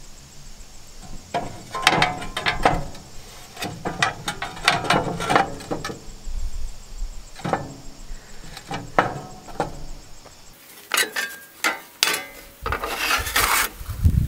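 Rusty steel stump-jumper pan of a Bush Hog 305 rotary cutter knocking and scraping against its steel centre bar and a rusty metal table top as it is lowered over the bar to test the fit. Irregular knocks and scrapes run through most of it, with a quick cluster of sharper clicks near the end.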